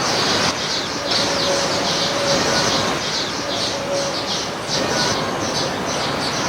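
Backyard birds chirping: a continuous stream of short, high chirps, two or three a second, over a steady background hiss.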